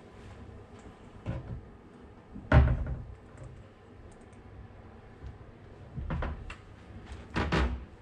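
Wooden hotel-room cabinet doors being handled: a handful of separate knocks and thuds, the loudest about two and a half seconds in, and a double thud near the end as the lower cabinet door is opened.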